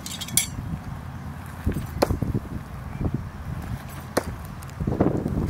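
Sharp clicks and clinks of steel throwing knives, a few seconds apart, the first with a brief metallic ring, over low wind rumble on the microphone.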